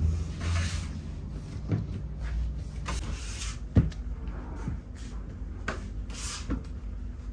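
Hands pressing and slapping dough pieces flat on a steel worktable: a series of soft knocks about once a second, the strongest just under four seconds in, with brief swishes of hands and dough sliding over the table. A steady low hum sits underneath.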